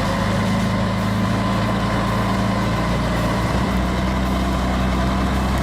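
Heavy vehicle engine running steadily with a deep, even drone.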